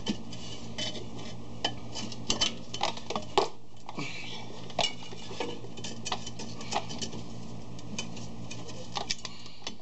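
Rust-seized rear brake drum on a 1997 Chevy Astro van clinking and scraping as it is worked back and forth by hand and pried at, the rust still holding it on the hub. Irregular light metallic clinks, with a sharper knock about three and a half seconds in.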